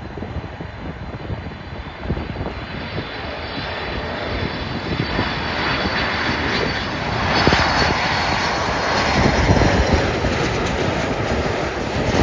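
Boeing 747-8F freighter's four GEnx turbofan engines on final approach, a jet rumble growing louder as the aircraft nears. A high fan whine joins in about halfway through.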